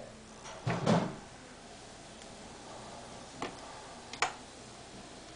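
A dull knock about a second in, then two short sharp clicks less than a second apart near the middle, from an iPod touch being handled and its buttons pressed.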